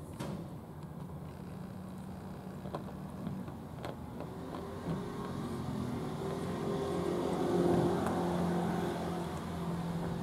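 A motor engine running with a steady low hum, growing louder from about four seconds in to a peak near eight seconds, then easing slightly.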